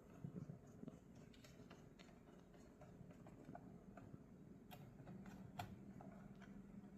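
Near silence with faint, scattered clicks from small screws and plastic parts being handled, two of them a little sharper near the end.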